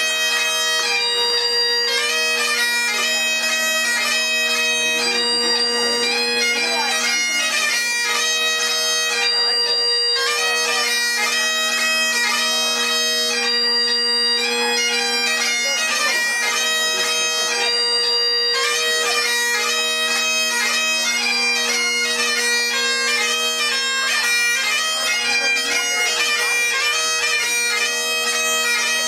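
Great Highland bagpipe playing a strathspey-time dance tune for the Highland Fling: the drones hold one steady low note under the chanter's quick, ornamented melody.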